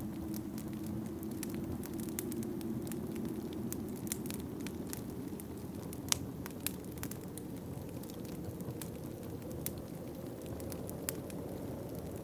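Wood fire in a fireplace crackling, with scattered sharp pops, the loudest about six seconds in, over a steady low rush of wind.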